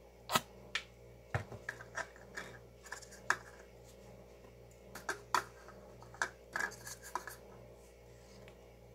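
A string of irregular light clicks and knocks, about fifteen in all, from plastic paint cups and a canvas panel being handled and set down on a wire rack, with a little scraping between them. The clicks stop a couple of seconds before the end.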